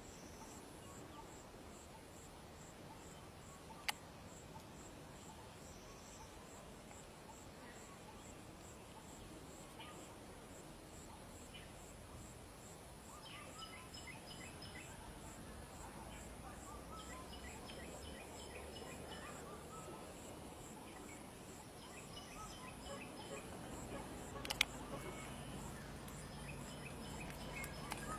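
Faint outdoor ambience with insects chirring in a steady, high, pulsing trill. Groups of quicker chirps come and go in the middle and later part, and two sharp clicks sound, one a few seconds in and one near the end.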